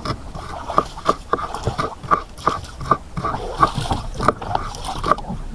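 Kitchen knife chopping green onions on a cutting board: a quick, slightly uneven run of sharp taps, about three a second.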